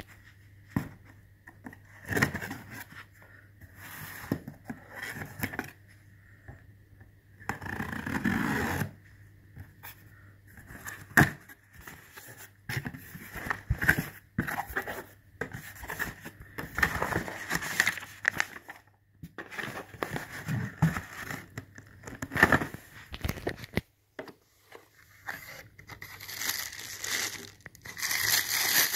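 Hands unboxing a parcel: packing tape tearing, cardboard flaps and boxes scraping and knocking in irregular bursts. Near the end, tissue paper crinkles around the shoes.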